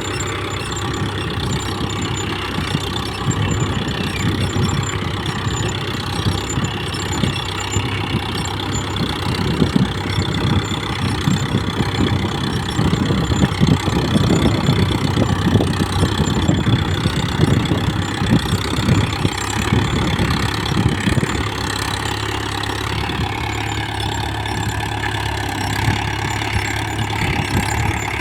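Mahindra Yuvo 415 DI tractor's four-cylinder diesel engine running steadily while ploughing. It gets louder and rougher, with dense clattering, from about ten to twenty seconds in.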